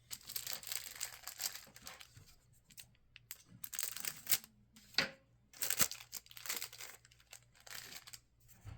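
Plastic wrapper of a trading-card rack pack crinkling and tearing as the pack is opened, in irregular bursts, the loudest near the middle.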